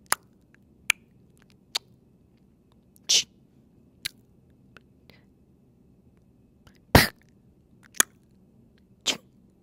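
Clicks and clunks of a 2024 Toyota Tacoma's interior controls being worked one after another: the drive-mode dial, switches and the sun visor. About ten separate sharp clicks, with a louder clunk about seven seconds in.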